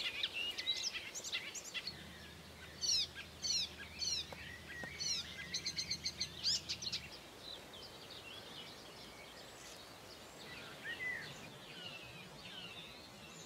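Several small birds singing and calling, with quick chirps and repeated short falling whistled notes. The singing is busy for the first half, then thins to fainter, scattered calls.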